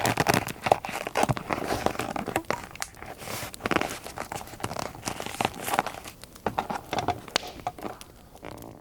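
Paper being handled for scrapbooking: irregular crinkling and rustling with many small sharp clicks, fading near the end.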